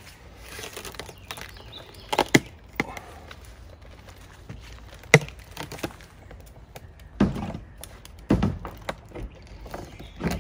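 Metal corner trim being pried and bent off an old truck camper's wall, giving a few sharp cracks and knocks, the loudest about halfway. The screws pull out of the top easily, a sign of roof rot underneath.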